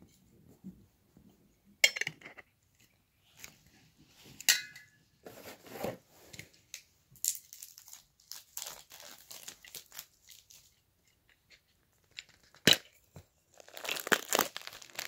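Funko Soda packaging being handled: a few sharp clinks from the can and its metal lid, one with a brief metallic ring, and light rustling. Near the end a plastic bag is crinkled and torn open.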